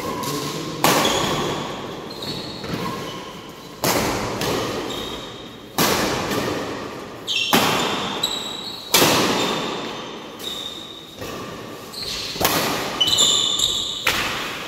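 Badminton rally in a large reverberant hall: a string of sharp racket strikes on the shuttlecock, roughly one every one to two seconds, each trailing off in a long echo. Short squeaks come between the strikes.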